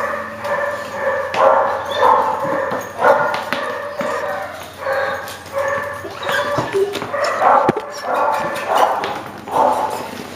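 Puppies yapping and whining over and over, in short high calls about once a second.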